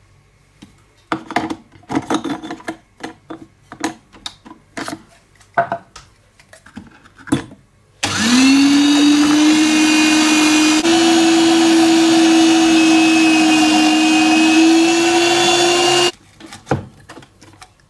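Clicks and knocks of plastic and metal parts as the spiky stainless-steel grating drum is fitted to an electric kitchen machine. About eight seconds in, the machine's motor starts with a quickly rising whine and runs steadily for about eight seconds while grating potatoes, then stops abruptly.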